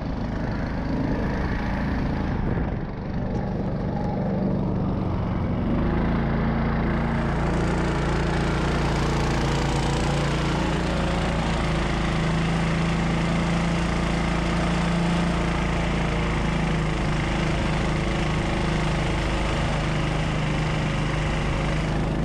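A homemade snow vehicle's 20 hp engine, driving through a CVT, runs under load as the machine moves off through snow. About six seconds in it gets louder and stays there as the machine picks up speed.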